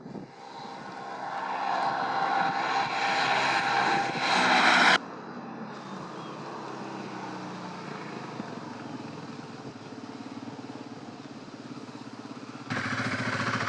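Honda Transalp's V-twin engine running as the motorcycle is ridden, growing louder over the first five seconds. The sound then drops abruptly to a quieter, steady engine note, and jumps louder again near the end.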